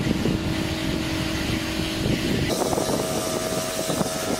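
Pressure washer running and spraying water onto a plastic headlight lens, rinsing off the sanding residue: a steady hiss of spray over a motor hum. About two and a half seconds in, the hum jumps to a higher pitch and the hiss gets brighter.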